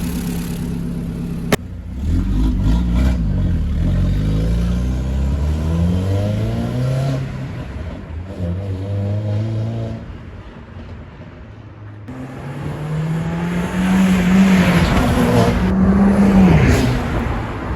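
Audi S3 8L's turbocharged 1.8-litre four-cylinder, breathing through a K&N cone intake filter, accelerating: the engine note climbs in pitch, drops about seven seconds in, then rises again and falls away near the end. A sharp click about a second and a half in.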